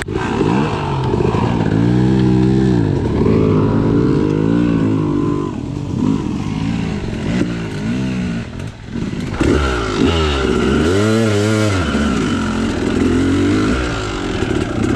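Yamaha YZ two-stroke dirt bike engine heard from the rider's seat, revving up and dropping back again and again in short throttle bursts while riding a rough trail, with a brief dip in the engine sound about two-thirds of the way in.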